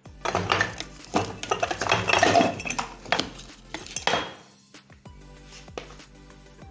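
A metal utensil clattering and scraping against metal cookware for about four seconds, over background music.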